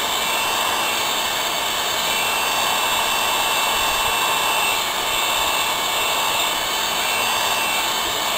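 Hot air gun blowing in a steady rush on its low setting, heating the phone's touch display to loosen it from the frame.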